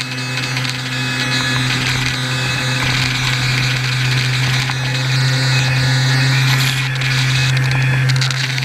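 HobbyKing Swamp Dawg RC airboat's electric motor and propeller running steadily at part throttle, a droning hum with a high whine over it, picked up close by the onboard camera.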